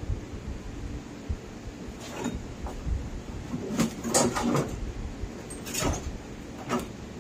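Handling noise: rustling and low bumps as the camera rubs against clothing, with a few sharp clicks and knocks, the loudest around the middle and near the end.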